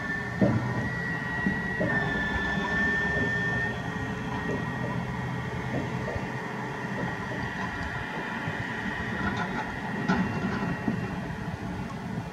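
Komatsu PC350 hydraulic excavator working among large rocks: a steady diesel engine hum with a high whine that shifts in pitch early on, and a few knocks of rock and bucket, the loudest about half a second in and another near ten seconds.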